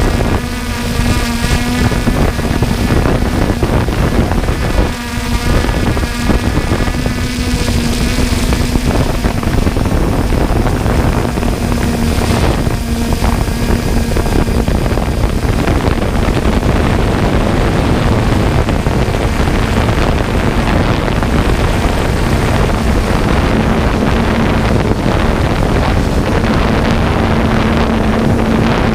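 John Deere harvest machinery running steadily, a loud constant engine drone with a whine of higher tones over the first several seconds, and wind buffeting the microphone.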